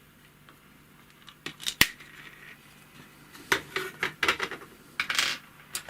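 Screwdriver and small metal parts of a sewing machine being handled: a sharp metallic click just under two seconds in, then several short scraping rattles.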